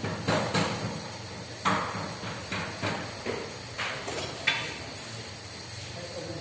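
Irregular knocks and clicks from work on a scooter's parts, about nine in six seconds, the sharpest about four and a half seconds in, over a steady low hum.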